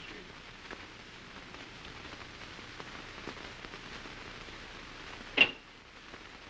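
Steady hiss and faint crackle of an early sound film's soundtrack, with one sharp click about five seconds in.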